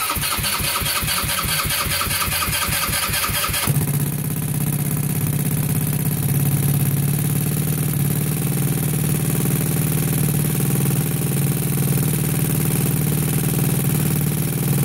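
Big-bore GY6 single-cylinder four-stroke scooter engine with a free-flow exhaust, cranked on its electric starter for nearly four seconds. It catches and settles into a steady idle.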